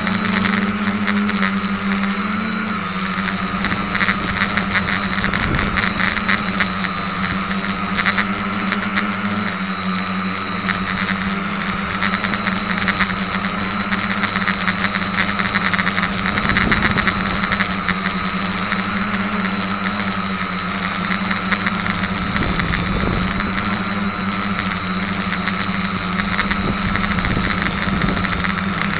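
SK450 quadcopter's four brushless motors and propellers whirring steadily in flight, heard through the camera mounted on the quad, with a constant high whine and frequent crackling over the hum.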